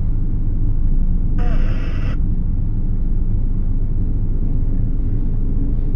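Steady low road and engine rumble heard from inside the cab of a moving ambulance.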